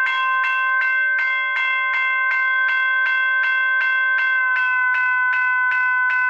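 General Signals Type 1 electronic railroad crossing bell (e-bell) ringing through its speaker: a synthesized bell strike repeating about three and a half times a second, loud and at a steady pitch.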